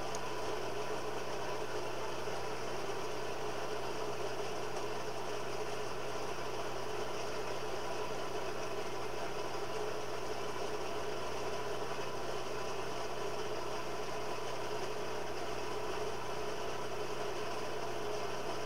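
Electric blower on a coal forge's fire pot running steadily: an even hum with a few steady tones over a rush of air, with no change in speed.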